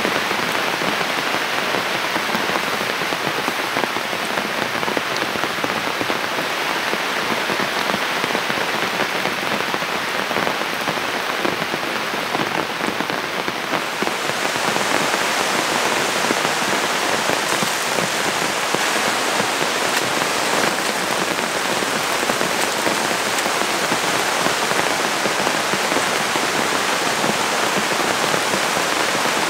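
Heavy rain falling steadily on tent fabric and wet ground, an even hiss. About halfway through, the hiss becomes brighter and a little louder.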